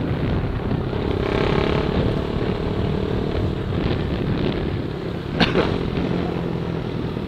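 Honda CB Twister's single-cylinder engine running steadily as the motorcycle rides along, mixed with road and wind noise. A brief sharp sound cuts in about five seconds in.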